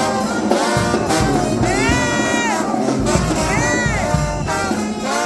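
Brass band music in a jazz, second-line style, with horn lines that bend up and down in pitch.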